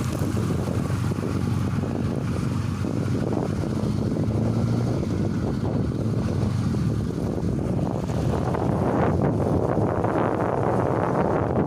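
VAZ-21099 on a test drive: the engine runs steadily under road and wind noise. The wind and road rush grows louder and rougher in the last few seconds.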